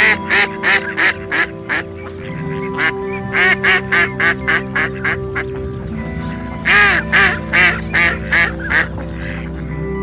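Mallard quacking in three quick runs of loud quacks, each run fading as it goes, over steady background music.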